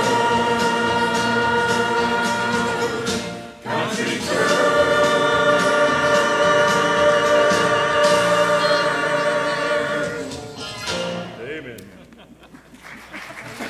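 Church choir singing with accompaniment, ending on a long held chord with vibrato that fades out about eleven seconds in.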